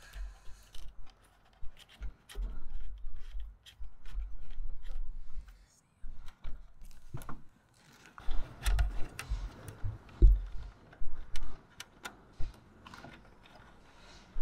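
Hands working a roof fan's wiring through a hole and setting the fan down: scattered scrapes, rustles and clicks, with intermittent low bumps, busier in the second half.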